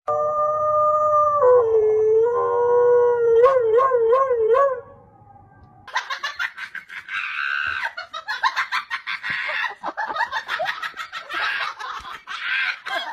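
A husky howling: one long call that drops in pitch about a second and a half in, then wavers up and down before stopping. After a short pause comes several seconds of rapid, choppy sound.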